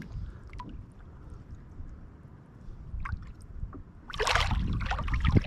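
Low wind rumble on the microphone with light water sounds and small clicks around the boat, then a louder rush of noise about four seconds in.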